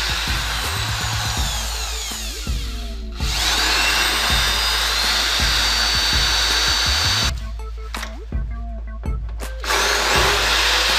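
Corded electric drill boring into a laminated chipboard panel in three runs, with short pauses about 3 seconds and 7 seconds in. The motor's pitch falls as the first run ends. Background music plays underneath.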